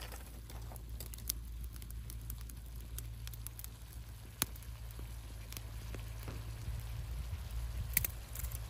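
Scattered sharp crackles and pops, the loudest about four seconds in and near the end, over a steady low rumble.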